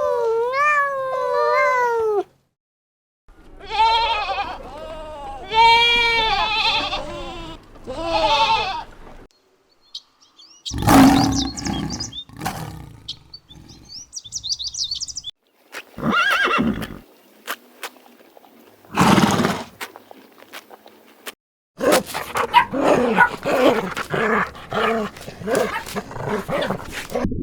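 A string of different animal calls cut one after another: long pitched wailing calls in the first few seconds, then several harsh roars separated by short silences, and a quick run of rapid calls near the end.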